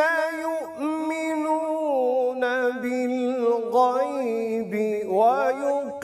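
A man reciting the Quran in slow melodic tilawat, holding long notes with wavering ornaments. The pitch steps down about two seconds in and climbs back up near the end.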